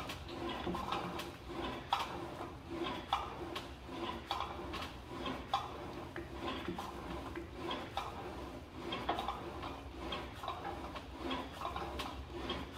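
NordicTrack exercise machine in use, clicking and knocking in a steady rhythm of about one to two strokes a second.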